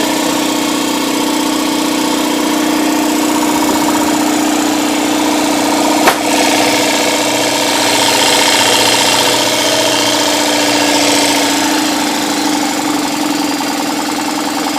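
Husky 60-gallon air compressor with a 220-volt single-phase motor, running steadily with a constant hum. A single sharp click comes about six seconds in.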